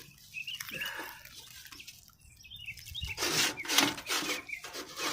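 Short, repeated bird chirps, then a run of scraping, rubbing strokes starting about three seconds in.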